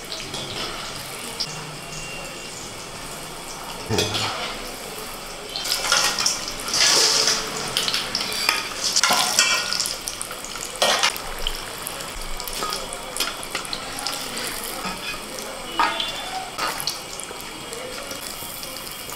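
Besan-battered chops deep-frying in oil in a steel kadai, a steady sizzle, with a perforated steel spoon scraping and clinking against the pan several times as the chops are turned and lifted out.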